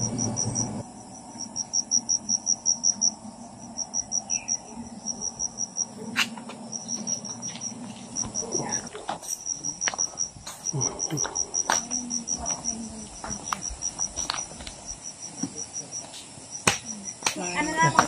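Insect chirping: a high-pitched pulsed trill, about ten pulses a second, repeated in runs of a second or two with short breaks.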